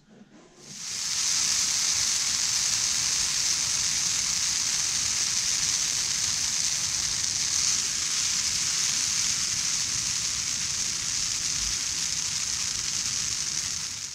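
Brush pile fire burning with a steady, dense hiss, starting about a second in and cutting off suddenly near the end.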